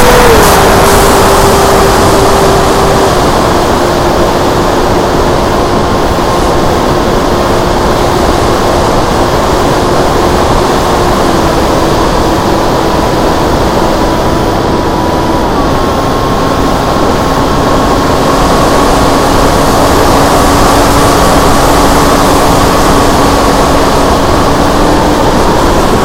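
Electric motor and pusher propeller of a Multiplex FunJet Ultra RC model jet in flight, a loud whine that drops in pitch in a few steps and climbs again near the end, over heavy wind rush on the onboard camera's microphone.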